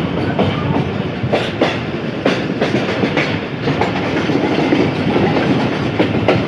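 Passenger coach of the 9 Up Allama Iqbal Express running on jointed track, heard through its open door: a steady rumble of wheels on rail with irregular clicks and clatter over the rail joints, as the train runs into the station.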